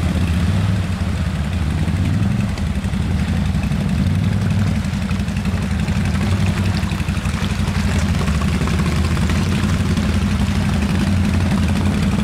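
ATV engines running at low, fairly steady revs as the quads crawl through a flooded stream.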